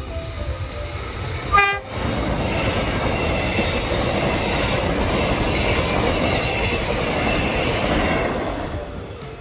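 Melbourne Metro electric suburban train sounding one short horn blast about a second and a half in, then passing close by with a steady rush of wheels on rail that fades near the end.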